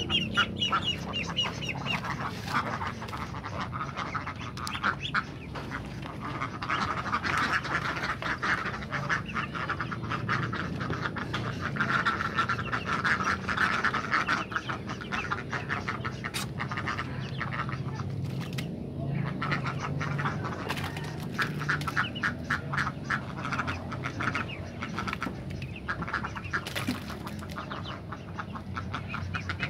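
A flock of ducks quacking continuously, many rapid overlapping quacks, with a couple of short lulls.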